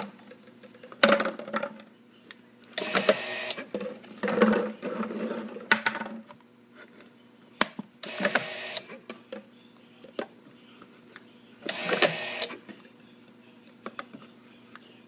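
Dispensa-Matic DM-III bottle labeler running in short bursts of about a second, several times, as flat plastic bottles are held against it and labeled. Light clicks of the plastic bottles being handled come between the bursts.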